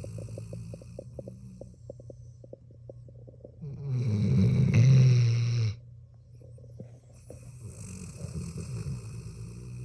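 Dog snoring loudly: quieter fluttering, rattling breaths either side of one loud snore about four seconds in that lasts about two seconds and cuts off suddenly.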